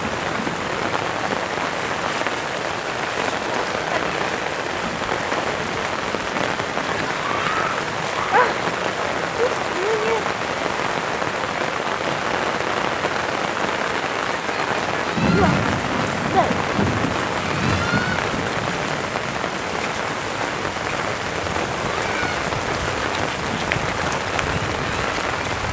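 Steady rain falling, an even hiss, with a few faint short squeaks and a brief low rumble about fifteen seconds in.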